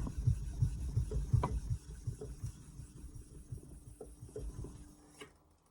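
Irregular soft knocks and clicks of whetstones being handled and set down on a hard surface, thinning out and stopping about five seconds in.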